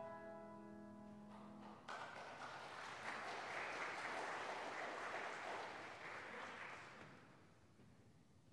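The last piano chord ringing and dying away, then the congregation applauding for about five seconds, the clapping fading out.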